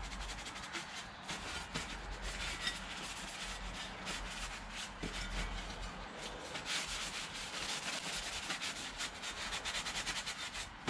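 A paper wipe rubbed back and forth over a metal motorcycle exhaust heat shield, degreasing it with brake cleaner. The scratchy wiping runs on steadily and gets busier in the last few seconds.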